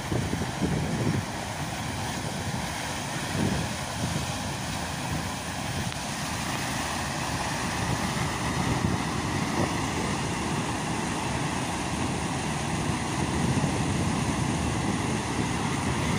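Water spilling over a small concrete weir: a steady rushing that grows a little louder toward the end.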